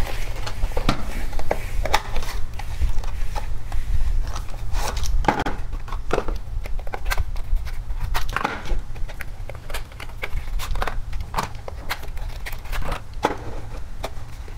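Cardboard boxes being opened and plastic miniature circuit breakers handled and set down on a wooden table: scattered rustles, taps and clicks over a steady low hum.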